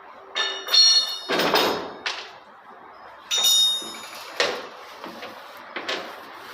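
Metal objects clanking with bright ringing tones, twice loudly, with a short scraping whoosh between and a few lighter knocks afterwards.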